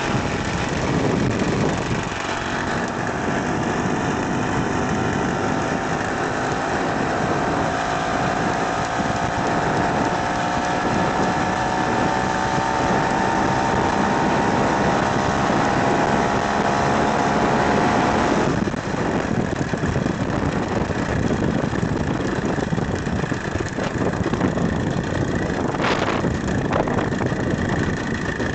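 Two-stroke Ural chainsaw engine driving a motorized wheelchair, running steadily under way, its pitch slowly rising for about fifteen seconds. About two-thirds of the way through, the engine note changes suddenly.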